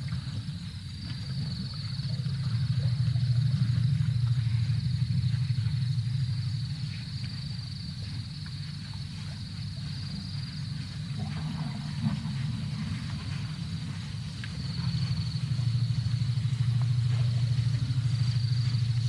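Steady high chirring of crickets at night, with a louder low rumble that swells up twice for several seconds at a time.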